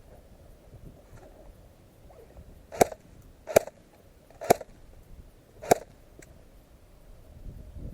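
Airsoft gun firing four single shots, spaced about a second apart, each a sharp crack.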